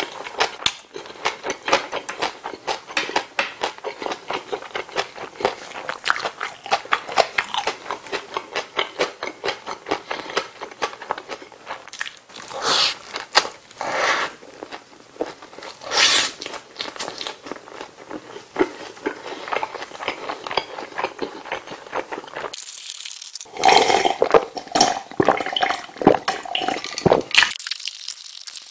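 Close-miked mouth sounds of a person eating a McDonald's bulgogi burger: steady wet chewing clicks, with a few louder bites and crunches of the burger's shredded lettuce partway through and a louder stretch of chewing near the end.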